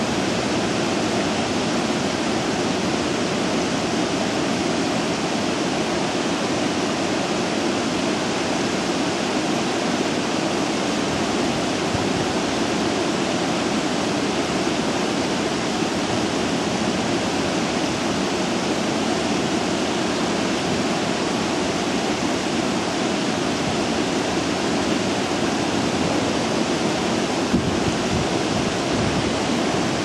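Water spilling steadily over the saw-toothed V-notch weirs of water-treatment settling basins, an even rushing.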